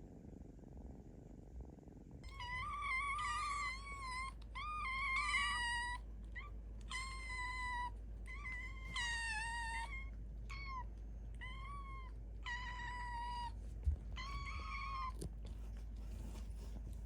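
Kitten meowing over and over in high, insistent calls, a hungry kitten's begging cries, each half a second to a second long. A low purr runs underneath before the calls start about two seconds in, and there is one brief knock near the end.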